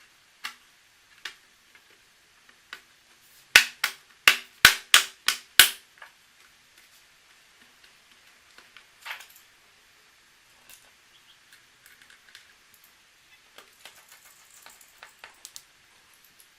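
Sharp clicks and taps of small laptop parts and tools being handled during disassembly: a quick run of six loud clicks about four to six seconds in, then faint scattered ticks and rustling.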